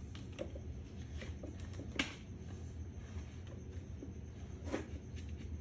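Plastic clicks and handling as the locking ring of a stand fan's back cage is twisted tight onto the motor housing, with one sharp click about two seconds in and another near the end, over a steady low hum.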